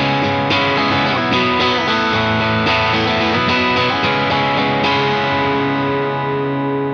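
S-style electric guitar with single-coil pickups, played through an amp in a tone demo: a run of picked chords, then a final chord left to ring from about five seconds in.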